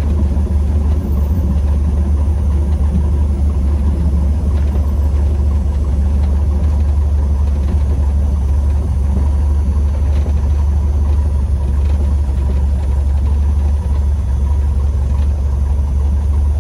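Cessna 150M's four-cylinder Continental O-200 engine and propeller droning steadily, heard from inside the cockpit as a constant low hum.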